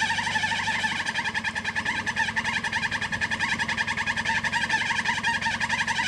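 Toyota Land Cruiser 70-series engine running at low revs as it crawls over rock, under a loud, rapid, rhythmic high-pitched pulsing.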